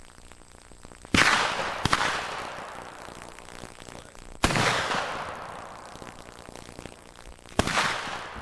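Three shots from black-powder muzzleloading rifles, about a second, four and a half and seven and a half seconds in. Each is a sharp report that dies away over a couple of seconds of echo. A smaller crack follows the first and the last shot.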